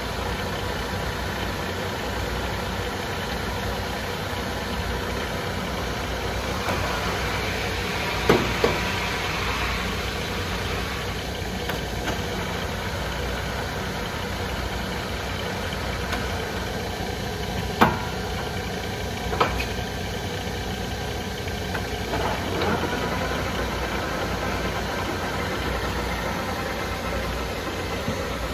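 LeBlond 32-inch Standard engine lathe running under power, its motor and headstock gearing giving a steady mechanical hum. A handful of sharp clunks come through, the loudest about 8 and 18 seconds in, as the headstock levers are worked.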